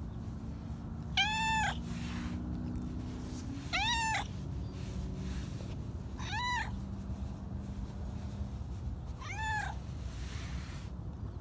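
Domestic cat meowing four times, short calls about every two and a half to three seconds, each rising and then falling in pitch.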